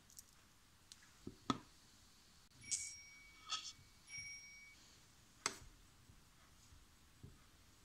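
Scattered clicks and a few short, ringing metallic clinks from handling a stainless-steel mixer-grinder jar, its lid and a steel spoon. The clinks come around the middle, with single sharp clicks before and after them. No grinder motor is running.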